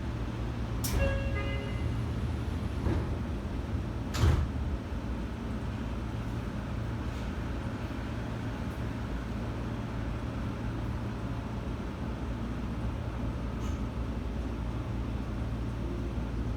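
Door chime of a Seibu 6000 series commuter train: a short run of stepped tones about a second in. The passenger sliding doors then move and stop with a loud thud about four seconds in, over the train's steady low hum as it stands at the platform.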